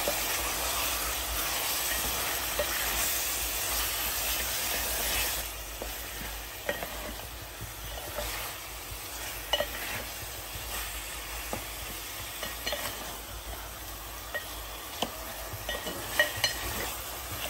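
Marinated mutton sizzling in hot ghee in an aluminium pot on high flame, being stirred and seared (bhuna) with a spatula that scrapes and taps the pot. The sizzle is loudest for about the first five seconds, then settles to a quieter hiss with scattered scrapes and clicks of the spatula.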